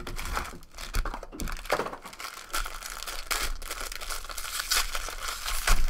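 A foil trading-card pack wrapper being crinkled and torn open by hand, a dense run of crackling and rustling, loudest near the end, as a card box is unpacked.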